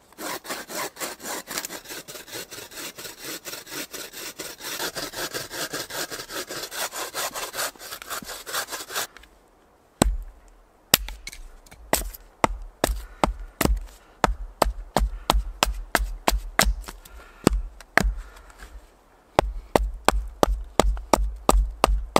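Hand saw cutting through a green wood log in quick, even back-and-forth strokes for about nine seconds. After a short pause, a hatchet repeatedly knocks into an upright split piece of the log, about two or three sharp strikes a second, splitting it.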